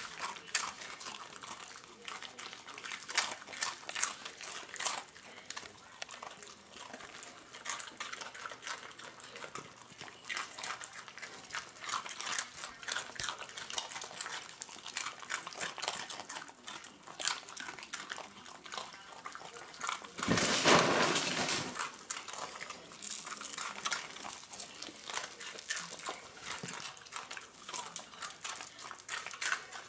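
Miniature pinschers crunching Cheerios off a tile floor: a steady run of small crisp clicks. About twenty seconds in, a louder rush of noise lasts a second and a half.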